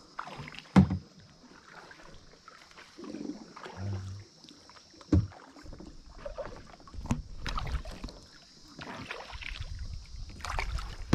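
Kayak being paddled: paddle strokes dipping and splashing in the water, with two sharp knocks, about a second in and about five seconds in.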